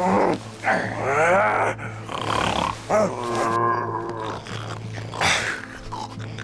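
Heavy snoring: a run of loud, drawn-out snores whose pitch rises and falls.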